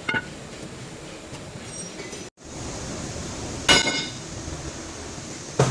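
Metal-on-metal hammer strikes during rear wheel bearing work: a light clink at the start, then a loud ringing blow a little past the middle and another near the end.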